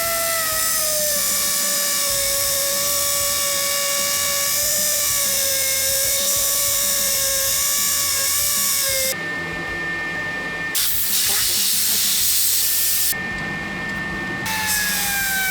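Electric belt sander grinding a spinning steel bar shaft down to size, a high motor whine over harsh hiss. The whine sags in pitch as it loads up, and the sound breaks off and changes abruptly several times.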